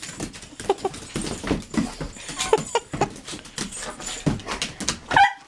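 A dog chasing a laser dot on a hardwood floor: a busy run of claw clicks and scrabbling, with a short high-pitched whine near the end.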